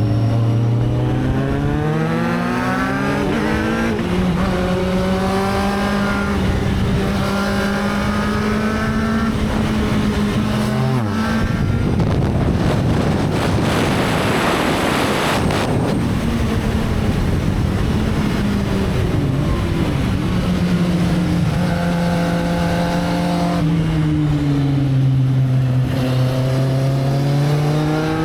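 Motorcycle engine under way, its pitch climbing as it accelerates, holding steady, then dropping and climbing again. About halfway through it is drowned for a few seconds by a rushing noise.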